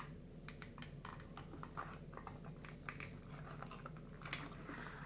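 Cardboard 3D-puzzle pieces being handled and pressed together: a string of small soft clicks and scratches, with a sharper click about four seconds in.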